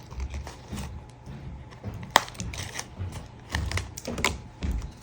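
Packaging being handled and opened by hand: irregular clicks, taps and soft low thumps, with a few sharper snaps around two seconds in and near the end.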